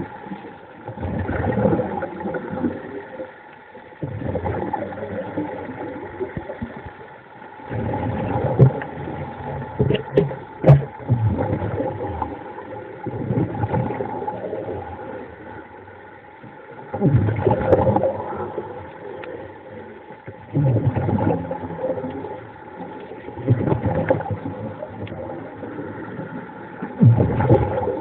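Muffled underwater sound: water rushing and gurgling over the camera in surges that swell and fade every few seconds.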